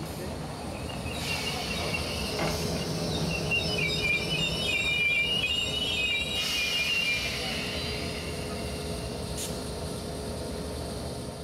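Class 456 third-rail electric multiple unit drawing slowly into the platform, with a high wavering squeal from its wheels and brakes from about a second in until about seven seconds, over a steady hum and rumble.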